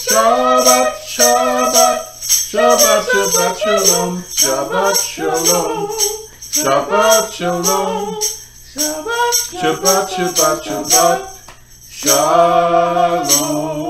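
A song: a singing voice in held, pitched phrases over a steady beat of shaken hand percussion.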